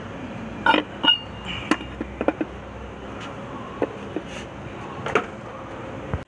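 Irregular metallic clinks and knocks, about eight in all, as oily metal parts of a compact tractor's front axle are handled and set down.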